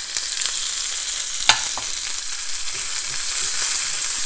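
Chopped onion sizzling in hot oil with whole cumin, dried chillies and garlic, being stirred in a small pan with a silicone spatula. The sizzle is a steady hiss that grows a little louder near the end, with a single sharp knock about a second and a half in.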